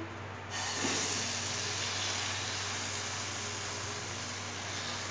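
Grated apples sizzling in a hot kadhai: a steady hiss that sets in about half a second in.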